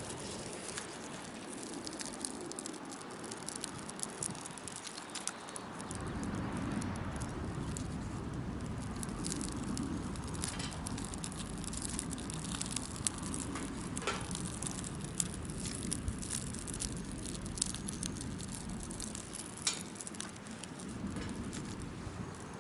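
Wood fire crackling, with many small sharp pops scattered throughout. A low rumble comes in about six seconds in and fades near the end.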